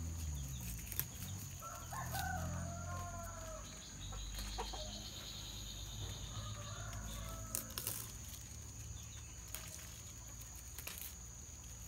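A rooster crowing: one call about two seconds in and a fainter second call around six seconds in, over a steady high thin tone and a few light clicks.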